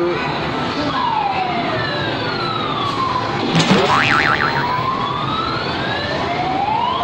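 Claw machine's electronic sound effect: a falling tone as the claw drops, a quick warbling trill about three and a half seconds in as it closes on the plush toys, then a rising tone as it lifts. Steady arcade din underneath.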